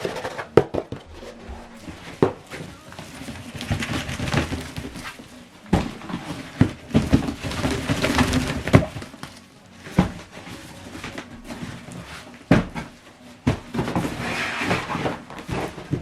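Handling noise from a small plastic toy vacuum cleaner: irregular clicks and knocks, about a dozen, with rustling between them.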